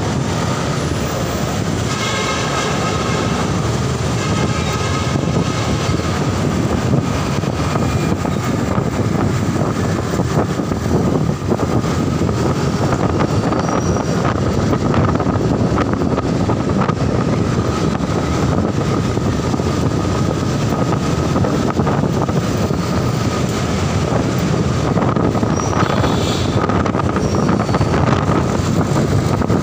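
Motorcycle riding at street speed in traffic, its engine and the road and wind noise making a steady mix on the bike-mounted camera, with a thin steady whine throughout.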